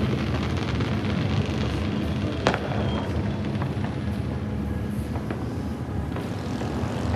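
Music with a steady bass, over which fireworks give off scattered sharp pops, one louder bang about two and a half seconds in.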